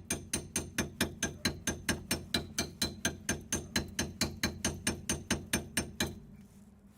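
Rapid, even hammer blows on metal, about four to five a second, driving a puncturing tool into the old rusty diesel fuel filter canister; the blows stop about six seconds in.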